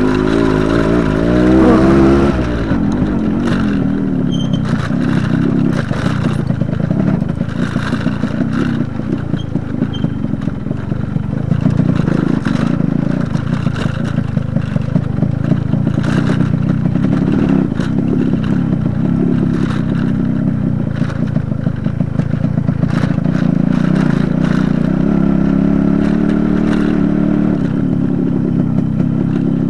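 Yamaha RX100's two-stroke single-cylinder engine running on a rough dirt track, its pitch rising and falling with the throttle, with many short clattering knocks from the bike going over stones and ruts.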